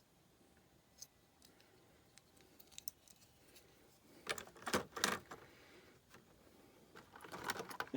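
Diecast toy cars and plastic packaging being handled: scattered light clicks, then louder clusters of crinkling and clattering about four to five seconds in and again near the end.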